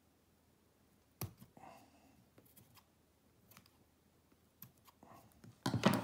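Small scissors snipping twine ends, quiet and sparse. One sharp click about a second in and a few faint ones after it, then a louder cluster of clicks and knocks near the end.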